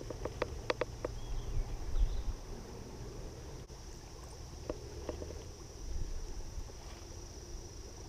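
Small clicks and handling sounds of fishing line and a beetle spin lure being tied on: a quick run of light clicks in the first second and a few more about five seconds in, over a low wind rumble on the microphone and a faint steady high hum.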